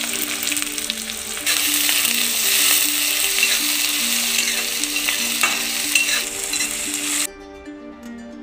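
Chopped onions and green chillies sizzling in hot oil in a kadhai as a ladle stirs them, with scraping against the pan. The sizzling grows louder about a second and a half in and cuts off suddenly near the end, leaving soft plucked background music.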